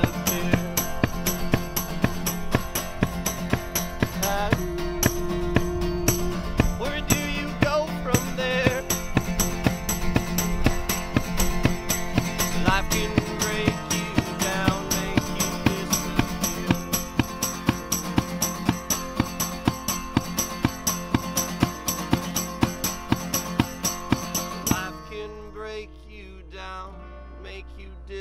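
Background song with singing over a steady beat, dropping to a quieter, sparser passage about three seconds before the end.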